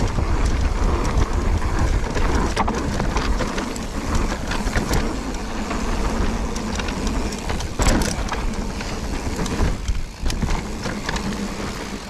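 Mountain bike riding fast down a dirt forest trail: wind rumbling on the microphone, tyre noise, and the bike rattling and knocking over bumps, with a sharp knock about eight seconds in. It gets quieter near the end as the bike slows.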